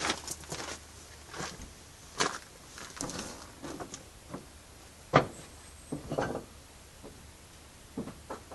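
Scattered knocks, clunks and clicks of metal parts and tools being handled and set down on a workbench, about a dozen separate strokes with the sharpest one a little after halfway.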